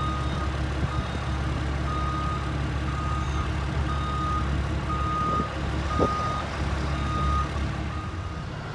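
JLG telehandler's diesel engine running while its reverse alarm beeps steadily, about once a second, as it backs up. Both stop near the end.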